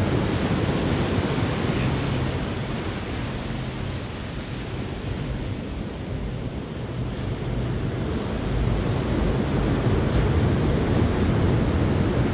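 Ocean surf washing on the shore, with wind rumbling on the microphone. The wash eases off about halfway through and builds again near the end.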